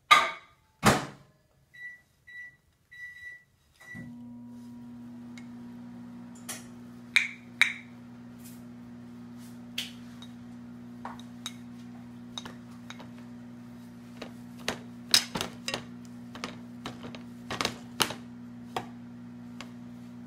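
Two loud knocks, then four short beeps, then a microwave oven starts and runs with a steady low hum. A spoon clinks against a bowl now and then over the hum.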